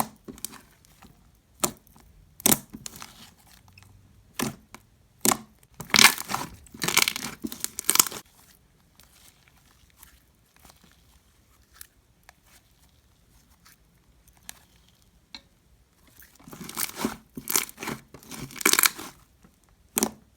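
Freshly kneaded glitter slime, made from Elmer's glue and a borax activator, being stretched, poked and squished by hand: sharp sticky clicks and crackling, tearing sounds that come in bunches, with a quieter stretch in the middle.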